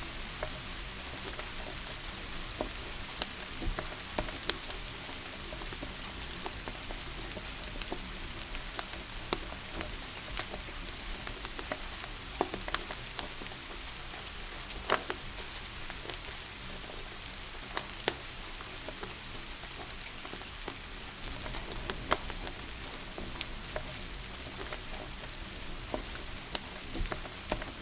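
Steady hiss of rain with irregular sharp pops and crackles from a wood fire, a few seconds apart.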